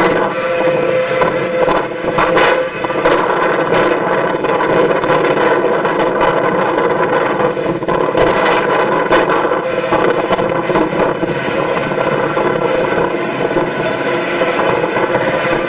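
A machine's engine running steadily with a continuous drone, with brief bursts of rattling noise now and then.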